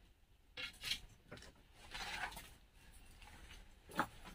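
Faint scuffing and scraping of shoes on rock while climbing over boulders: a few short rasps, then a sharper knock near the end.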